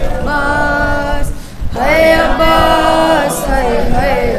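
A young noha khwan's voice chanting a noha unaccompanied through a microphone, in two long held phrases, the second sliding down in pitch at its end.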